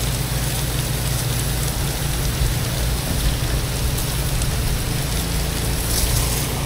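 Water spray from a pressure-washing wand hissing against a house wall, over the steady low hum of the pressure washer's engine running.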